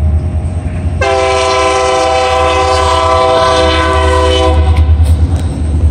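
Union Pacific diesel freight locomotive's air horn sounding one long blast of several tones at once. It starts about a second in and cuts off about four and a half seconds in, over a steady low rumble.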